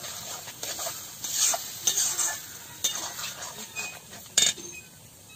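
Metal spatula stirring and pressing potato curry in an aluminium kadai, scraping the pan in repeated strokes while the curry sizzles lightly. A single sharp clank comes about four seconds in.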